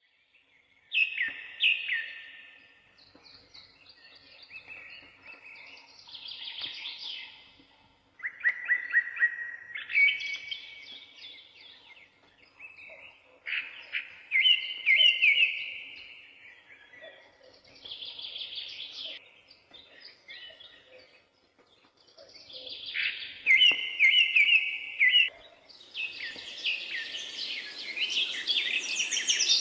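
Birdsong: a bird sings trilling, chirping phrases every few seconds with short pauses between them. Near the end a denser chorus with a steady hiss comes in.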